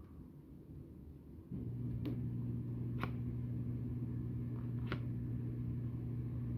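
A steady low mechanical hum, like a household appliance or fan motor, switches on about a second and a half in and holds steady. A few faint clicks of trading cards being handled come over it.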